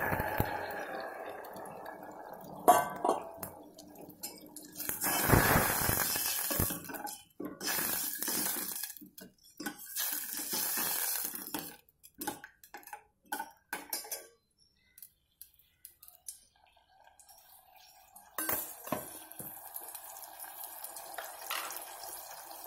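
Tamarind water poured into a stainless steel pot of fried onions and garlic, the pouring noise fading within a couple of seconds; then a steel ladle clanks and scrapes against the pot in bursts as the mixture is stirred, with a sharp clank about three seconds in and another near the end.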